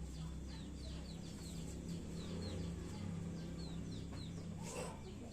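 Chickens clucking, with many short, high, falling peeps repeated throughout over a steady low hum.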